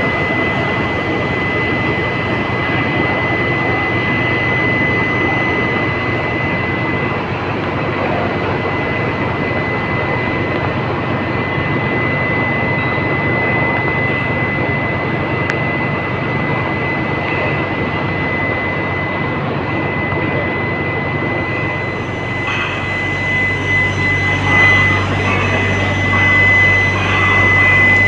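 Steady foundry machinery noise with a constant high-pitched whine, typical of a medium-frequency induction melting furnace running. A deeper hum and some uneven clatter grow louder over the last few seconds.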